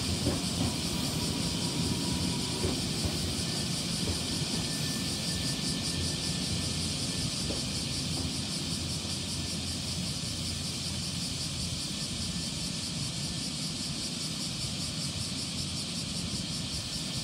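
Nankai 6300 series electric train pulling slowly into the platform and coming to a stop, with a steady hiss over a low rumble.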